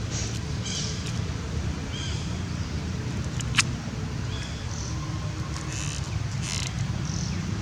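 Short, high-pitched animal chirps or squeaks, about one a second, over a steady low rumble, with one sharp click about halfway through.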